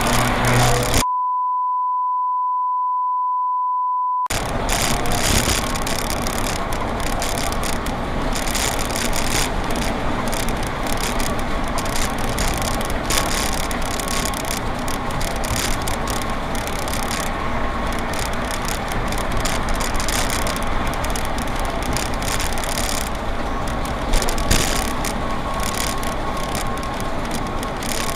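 City bus driving in traffic: steady engine and road noise inside the bus. About a second in, the sound is replaced for about three seconds by a steady 1 kHz censor bleep.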